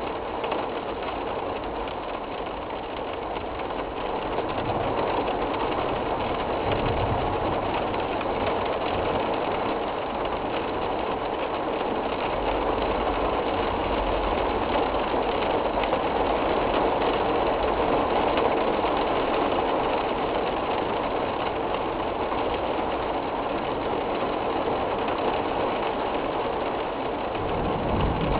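Severe storm with heavy rain and damaging wind, a steady rushing roar, with low rumbling gusts now and then.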